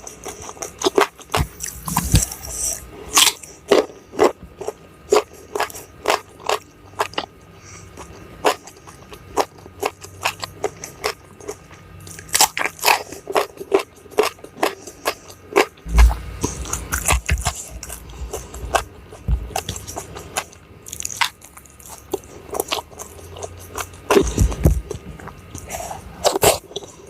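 Close-miked eating: crisp crunching bites and chewing of crunchy food in clusters of sharp clicks, with a few low thumps.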